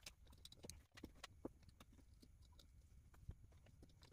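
Faint, irregular clicks and taps, several a second, from hands handling a carbon-fibre FPV drone frame and its small parts.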